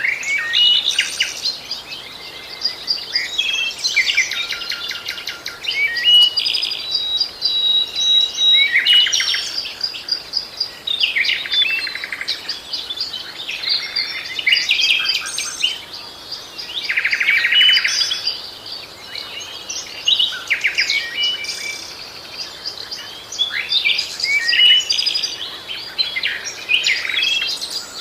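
Songbirds singing: a continuous run of high chirps, short whistles and fast trills, phrase after phrase.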